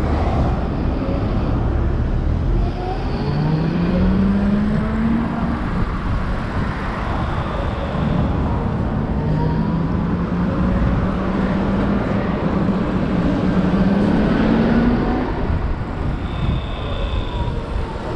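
Electric motorcycle riding slowly through queued traffic: wind rumble on the microphone and surrounding traffic noise, with the hub motor's whine rising in pitch twice as it pulls away, briefly a few seconds in and then in a longer, slower climb through the middle.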